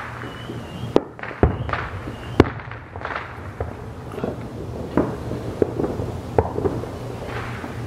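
Aerial firework shells bursting in an irregular string of sharp bangs, about a dozen, the loudest ones about a second and a half and two and a half seconds in.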